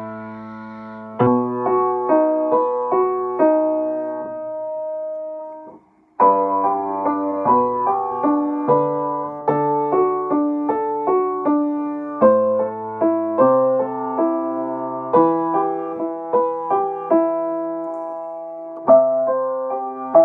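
Upright piano played by hand, a theme-and-variation piece in chords and melody. A held chord fades and the playing stops briefly about six seconds in, then picks up again in steady notes.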